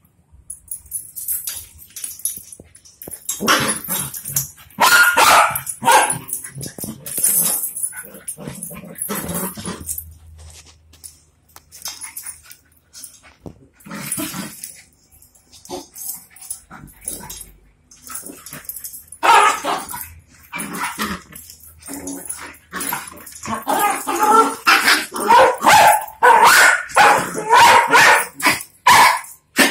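Dogs barking and yipping in bursts while a large dog and a small dog play-fight, with the busiest stretches about a quarter of the way in and over the last third.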